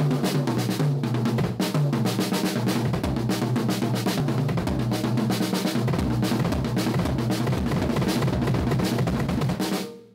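Acoustic drum kit played in a busy rhythm of fast snare, bass drum and cymbal hits, fading out at the end.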